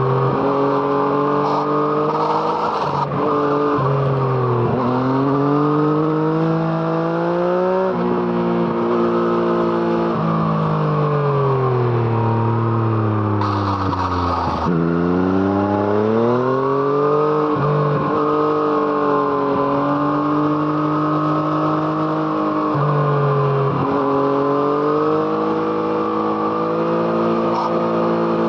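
A Yamaha MT-09's three-cylinder engine, through an Arrow Thunder exhaust, under way on the road. The revs climb and drop sharply with gear changes several times. About halfway through they fall away in one long slowdown, then climb again as the bike accelerates.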